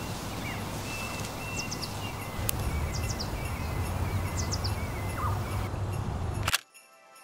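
Outdoor ambience: a steady background hiss and low hum with several short bird chirps. A single sharp click about six and a half seconds in, after which the sound cuts out.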